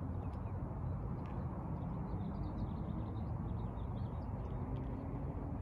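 Outdoor background noise: a steady low rumble with small birds chirping over it, busiest from about two to four seconds in.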